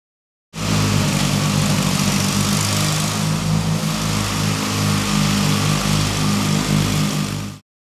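A riding lawn mower's engine running steadily. It cuts in abruptly about half a second in and cuts off just as abruptly shortly before the end.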